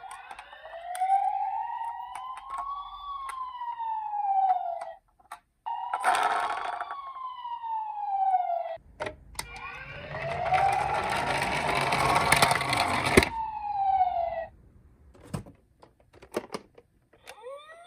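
Electronic siren of a toy emergency-vehicle minicar, sounding slow rising-and-falling wails, three times with short breaks between. A loud rushing noise covers much of the third wail, and a few sharp clicks follow near the end.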